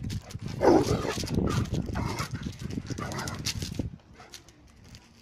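Greater Swiss Mountain Dog giving several short play barks and yips in a row, over a low rumble that stops suddenly about four seconds in.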